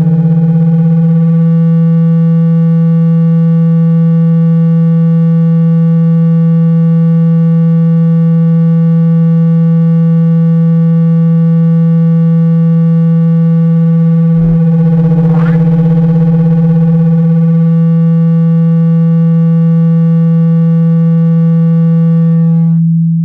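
Loud, steady, low buzzing tone, a phone speaker-cleaning sound meant to shake liquid and dust out of the loudspeaker. A click comes about 14 seconds in, followed by a brief rising sweep.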